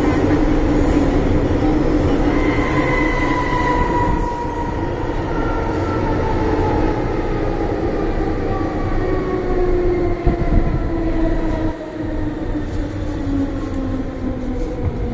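Hong Kong MTR M-Train electric multiple unit slowing under electric braking: several whining tones fall steadily in pitch over a steady rumble of wheels on rail. This is the 'ghost-howl' brake sound of this first-generation train.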